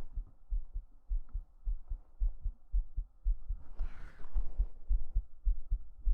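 A human heartbeat picked up close by a microphone held to the chest: steady, regular low thumps. A short soft hiss comes about four seconds in.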